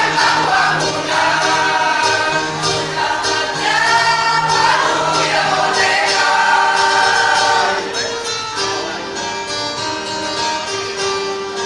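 A choir of adults singing with instrumental accompaniment; the voices stop about eight seconds in, and the accompaniment plays on alone.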